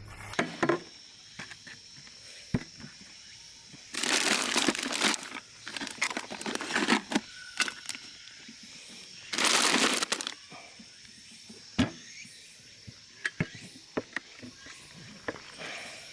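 Crinkling and rustling from something being handled, in two longer bursts of about a second each, one a third of the way in and one past halfway, with scattered light clicks and knocks between them.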